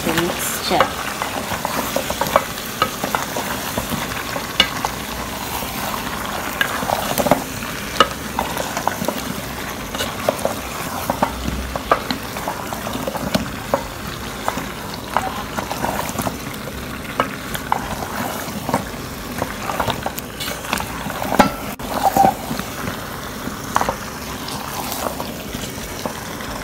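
Wooden spatula stirring whole peeled potatoes in a metal saucepan, with frequent knocks and scrapes against the pot, over a steady sizzle of the frying tomato sauce.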